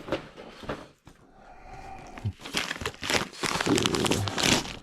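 Packing material crinkling and rustling as parts are taken out of a box, quiet at first and loudest in the second half.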